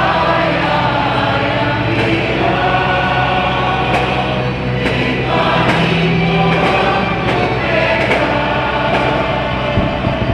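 Choir singing a hymn, the voices holding long, steady notes.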